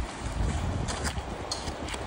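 Steady rushing noise with a few faint, sharp clicks of boots stepping on hard snow.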